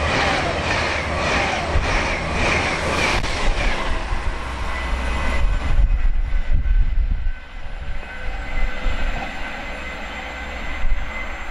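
A train passing at speed: a regular beat of wheels over the rail joints, about two a second, for the first few seconds, then a rumble that dies away as the train moves off.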